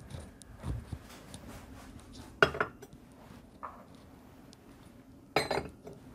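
Mugs clinking as they are set in place: a soft knock about a second in, then two sharp clinks with a short ring.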